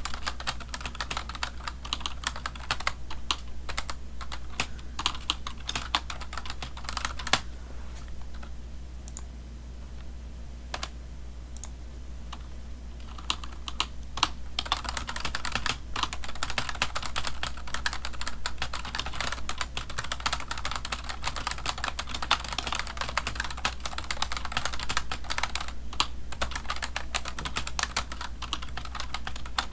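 Typing on a computer keyboard: a dense run of key clicks that thins to a few scattered keystrokes for about five seconds, starting about eight seconds in, then picks up again. A low steady hum runs underneath.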